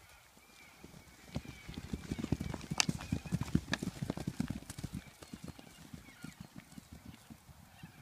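Hooves of a Shetland pony and a larger horse galloping on grass: a rapid run of dull thuds that builds about a second and a half in, is loudest around three to four seconds, then fades away.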